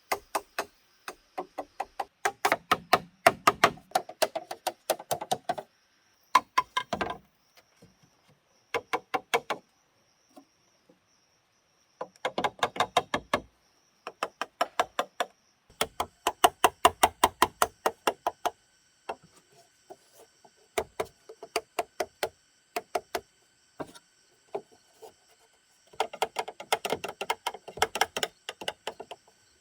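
Rapid chopping with a blade on wood: quick runs of sharp knocks, several a second, in bursts of a few seconds with short pauses between.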